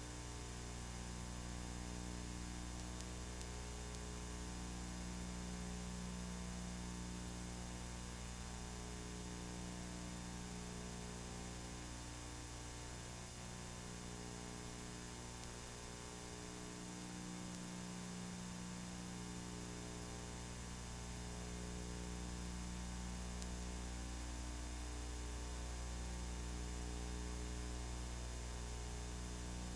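Steady electrical mains hum with a faint hiss underneath, unchanging throughout; no other sound.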